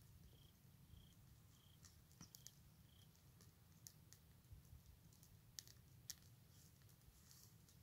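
Near silence: faint insect chirping, a short high pulse repeated a little under twice a second, stops about three seconds in. Scattered faint sharp clicks run throughout.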